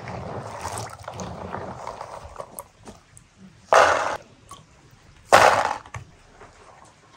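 Hands swishing and rubbing chestnuts in a plastic basin of water. Then there are two short, loud clatter-splashes, about a second and a half apart, as handfuls of wet chestnuts are dropped into a metal pan.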